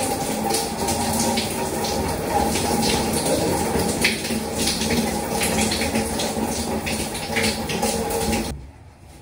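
Shower running and water splashing onto a person and the floor in a small shower cubicle, a steady spray broken by uneven splashes. It stops abruptly near the end.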